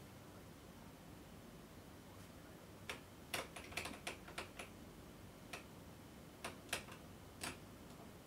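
Keys of a clear acrylic mechanical keyboard pressed in scattered, irregular strokes during gameplay: none for the first three seconds, then a quick run of taps, then a few single presses. A faint low hum lies under them.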